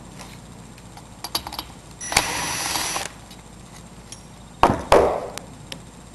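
Metal parts and hand tools clinking and knocking during a small-engine teardown: a few light clicks, a rasp lasting about a second, then two loud metallic clunks in quick succession near the end.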